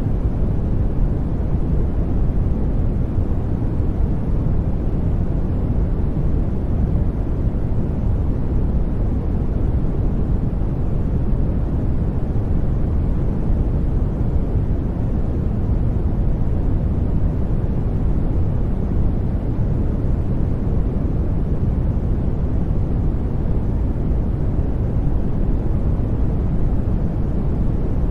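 Steady generated noise of the sleep-sound kind, sold as white noise: a constant, unchanging deep rush weighted to the low end rather than a bright hiss.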